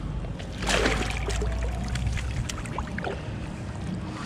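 A net of bream tipped into the river: a sudden splash about a second in, then water pouring and dribbling through the mesh with small splashes as the fish go back.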